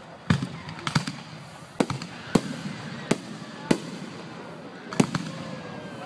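Aerial fireworks exploding: a string of about eight sharp bangs at irregular spacing, each followed by a short echo, the loudest about five seconds in.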